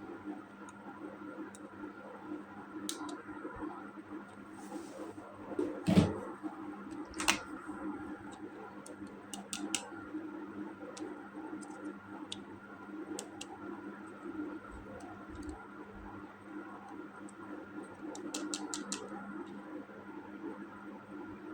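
Plastic toys and packaging being handled: scattered clicks and taps, a louder knock about six seconds in and another a second later, and a quick run of clicks near the end, over a steady low hum.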